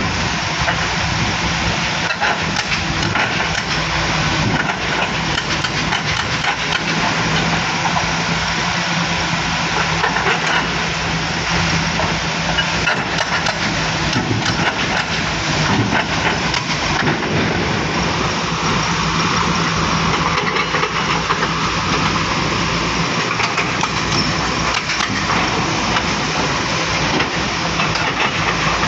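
Volvo excavator's diesel engine running steadily while it works, with scattered knocks and clatter. A higher hum rises in about two-thirds of the way through.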